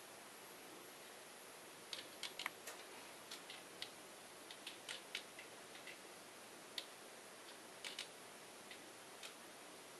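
Relays on MegaPoint model-railway relay boards chattering while idle: faint, irregular clicks in clusters, starting about two seconds in, over a steady hiss. This is the unwanted idle chatter that the new beta software is meant to remedy.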